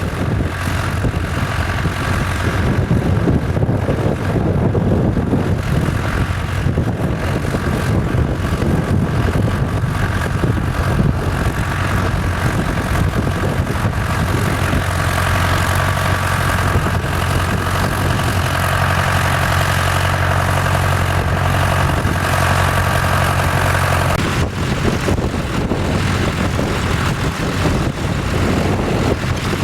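Vintage tractor engine running steadily, its note changing about 24 seconds in.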